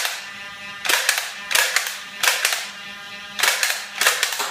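Nerf Stockade dart blaster being worked: a series of sharp plastic clacks, about six in four seconds, several of them short doubled clacks.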